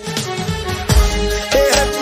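Background music: a song with a steady beat, about two beats a second, and a wavering melody line.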